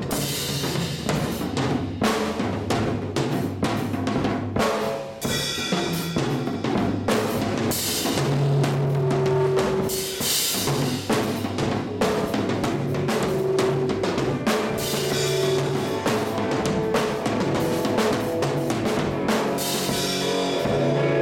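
Drum kit played as a solo: fast runs of snare, tom and bass drum hits with cymbals, without a break.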